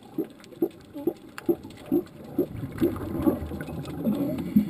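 California sea lions calling underwater: a regular train of short, low barks about two a second, joined by several overlapping, wavering calls in the second half.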